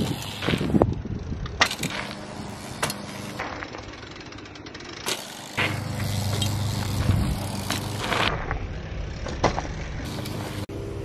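BMX bikes rolling over a packed-dirt and gravel track: tyre noise on the loose surface with scattered sharp clicks and knocks from the bikes.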